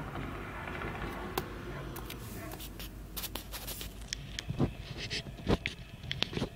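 Diesel freight locomotive approaching slowly, a steady low rumble. From about halfway through, a run of irregular sharp clicks and knocks comes in over it.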